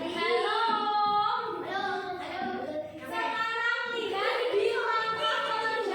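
Children singing a song, with held, pitched notes.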